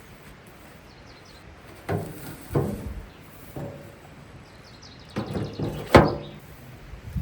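Heavy stones being handled and knocked against each other: a few dull clunks, then one sharp stone-on-stone knock about six seconds in, the loudest. A bird chirps faintly twice.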